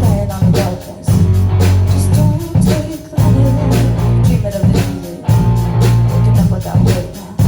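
Live band playing an instrumental passage of a rock song: guitar over bass notes that change about once a second, with steady drum hits.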